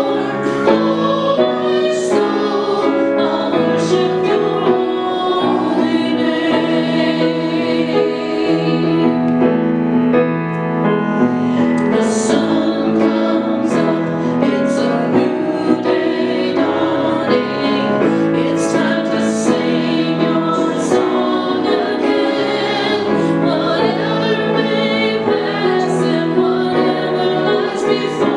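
Voices of a man and a woman singing a hymn together, with piano accompaniment.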